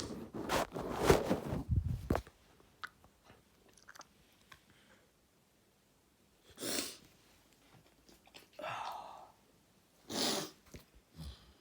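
Sneezing: a loud, noisy sneeze burst over the first two seconds, then three shorter breathy bursts about two seconds apart.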